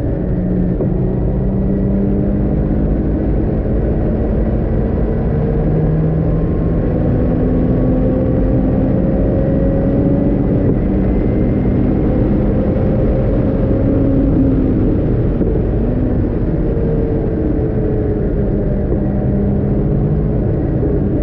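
Caterham R500's four-cylinder engine at full racing speed, heard from the open cockpit over heavy wind rush. The engine note climbs and drops several times as it pulls up through the gears, then it comes off the throttle to brake for a corner near the end.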